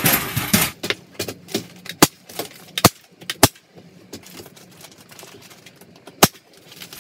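Staple gun firing about four sharp snaps at uneven intervals, fastening the folded-over paper flange of a fiberglass batt to the studs. The batt's paper facing rustles at the start.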